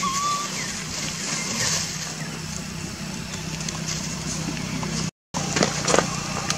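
Outdoor background noise with a steady low hum, like distant engines. There is a brief high squeak at the very start, a short dead-silent dropout just after five seconds, and a few sharp clicks after it.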